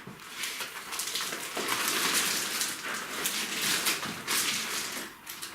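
Packaging rustling and crinkling as the TV's mounting screws and bolts are handled: an irregular, crackly noise that carries on throughout.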